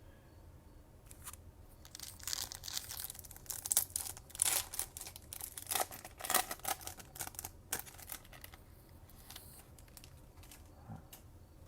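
Foil wrapper of a Topps Chrome trading card pack being torn open and crinkled: a run of short rips and crackles for several seconds, then fainter handling rustles near the end.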